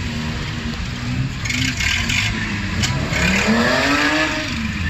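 BMW E30 engines running at low speed, one revved up and let back down about three seconds in. Two short spells of hiss come through during the rev and just before it.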